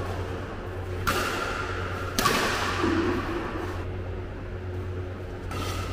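Badminton racket hitting the shuttlecock twice, about a second apart, sharp smacks that echo in the hall, over a steady low hum.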